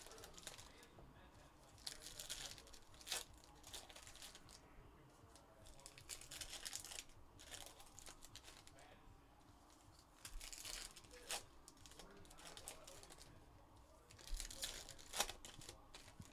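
Foil trading-card packs being torn open and their wrappers crinkled, in short bursts a few seconds apart.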